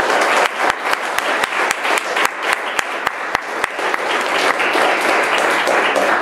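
Lecture-hall audience applauding, a steady mass of clapping with single sharp claps standing out.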